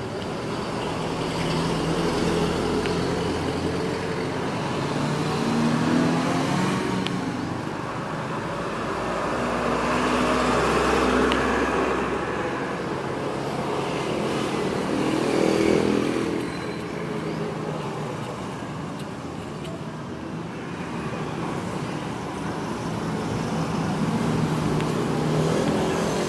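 Road traffic going by: vehicle engines swelling and fading as they pass, over a steady traffic hum.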